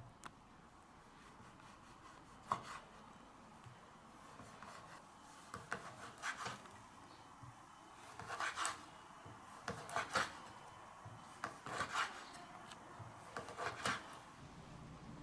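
Chef's knife slicing dried mullet roe on a bamboo cutting board: separate cuts, each a short scrape ending in a tap of the blade on the board. The first tap comes about two and a half seconds in, then a cut every second or two.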